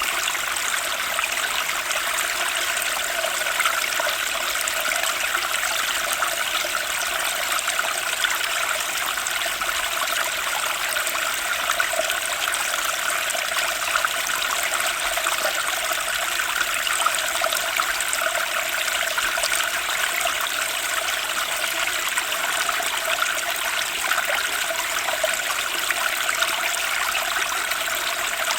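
Turbulent stream of water rushing and splashing over stones, a steady, unbroken flow.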